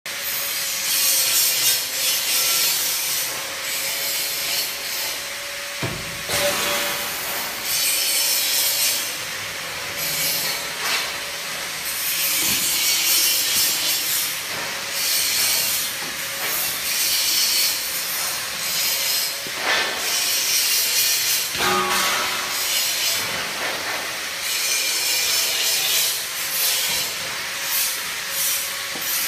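DT1000-4 wood polishing machine running: a loud hiss that swells and fades every second or two over a steady mid-pitched tone.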